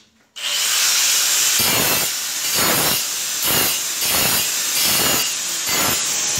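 Angle grinder cutting into a ceramic floor tile, cutting in sharply just after the start with a steady high grinding that swells about once a second as the disc is worked around to cut a round hole in the tile.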